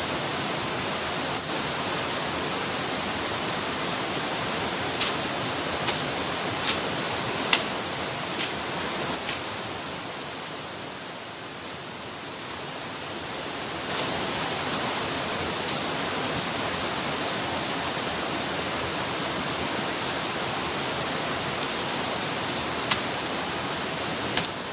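Rushing water of rapids beside a waterfall, a steady hiss that dips a little quieter for a few seconds in the middle. Sharp knocks stand out over it, about six spaced roughly a second apart starting about five seconds in, and a couple more later.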